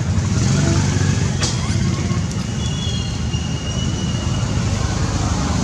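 Steady low background rumble, with a faint thin high whistle about halfway through.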